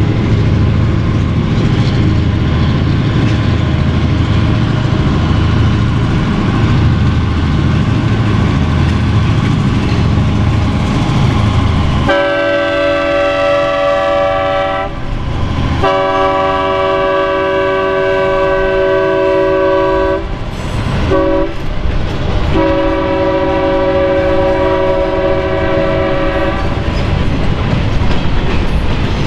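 EMD SW8 diesel switchers with their eight-cylinder 567 engines running under load as the freight train rolls by, then the locomotive air horn sounding in a series of long blasts from about twelve seconds in.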